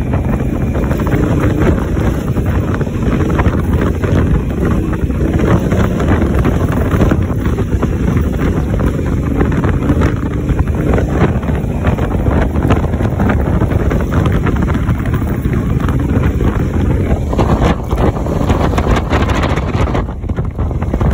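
Wind buffeting the microphone over the steady running of a Honda Africa Twin's parallel-twin engine, riding along on a dirt road.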